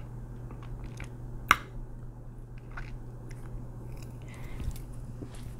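Quiet mouth sounds from a person holding a hand over her mouth after a hiccup: small faint clicks and one sharper click about a second and a half in, over a steady low hum.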